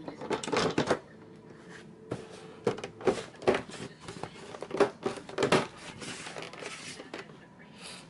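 Plastic parts of an HP Pavilion 23 all-in-one PC clicking and rattling as the case is handled and a part is fitted back on, in three clusters of sharp clicks and knocks.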